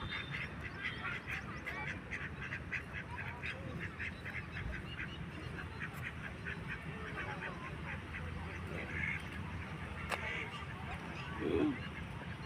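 A flock of waterfowl calling: many quick, overlapping calls for the first half or so, thinning out later, with one louder, lower call near the end, over a steady low rumble.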